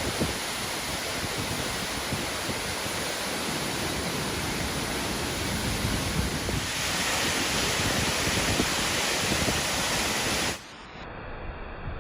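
Waterfall rushing: a steady, full-range wash of falling water, a little louder and brighter from about seven seconds in. It cuts off abruptly near the end, leaving a quieter, duller noise.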